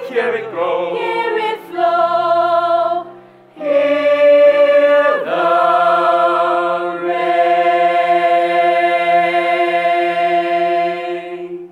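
Stage-musical chorus singing the final phrases of a show song. After a short break about three seconds in, the voices hold one long chord for about the last six seconds, and it cuts off at the end.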